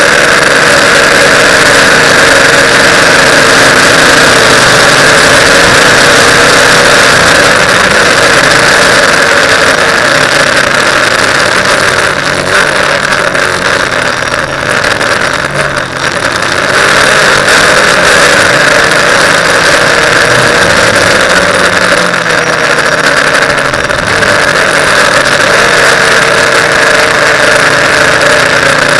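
TBS Discovery quadcopter's electric motors and propellers whining steadily in flight, easing off briefly about halfway through as the throttle drops, then picking up again.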